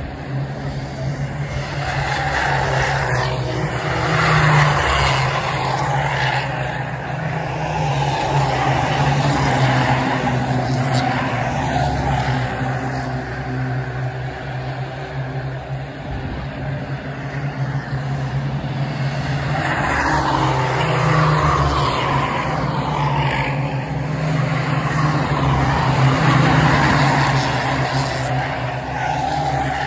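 A pack of Ministox, small Mini-based racing cars, lapping a shale oval with their engines droning together. The sound swells as the pack comes past about four seconds in and again from about twenty seconds in.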